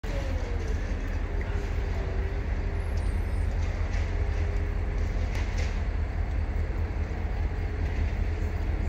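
Steady street traffic noise with a deep low rumble, a passing vehicle's tone falling slightly in the first couple of seconds.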